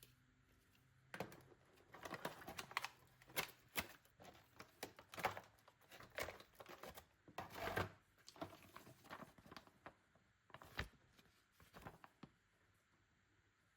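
Faint, irregular clicks, taps and short crinkling rustles of small objects being handled, such as plastic packaging or a case. The sounds start about a second in and stop shortly before the end.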